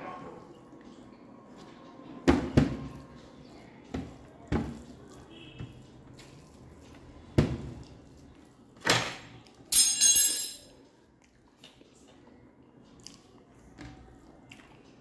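Eating rice and dal by hand: fingers squishing and mixing cooked rice with yellow dal fry on a plate, and mouthfuls being chewed. A string of short, separate sharp sounds runs through it, the loudest a denser one about ten seconds in.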